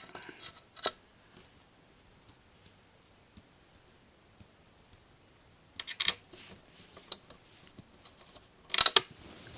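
Handling and clicking of TV stand parts and screws during assembly: a single click about a second in, a brief clatter around six seconds in, and a louder burst of clicks and rattles near the end, with near quiet between.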